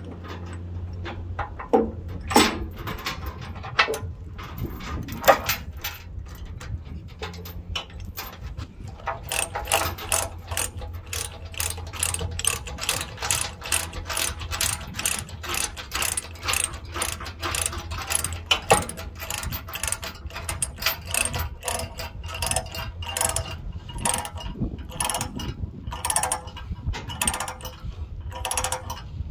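Ratchet chain binder being cranked to tighten a tie-down chain: a few scattered clanks of chain and hardware, then from about nine seconds in a fast, continuous run of ratcheting pawl clicks, over a steady low hum.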